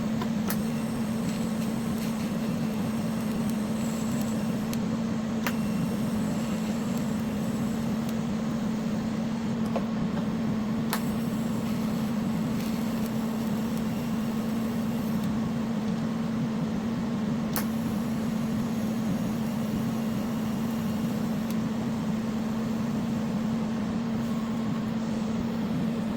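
TIG welding on a cracked steel snowblower part: a steady electrical hum with a hiss over it, and a few short sharp clicks.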